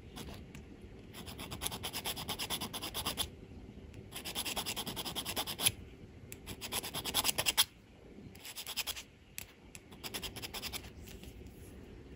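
Needle file rasping across the cut end of a 12-gauge fine silver wire ring in about five bursts of quick, short strokes with brief pauses between. The ends are being filed flat so they butt together without a gap, ready for fusing.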